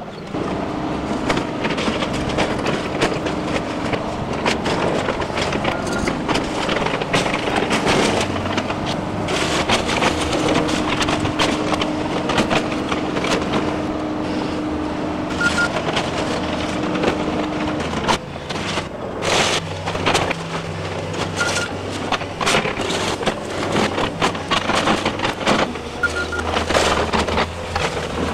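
Caterpillar hydraulic excavator demolishing a small stucco house: its diesel engine runs throughout under continuous crunching, cracking and clattering of breaking wood, roofing and stucco.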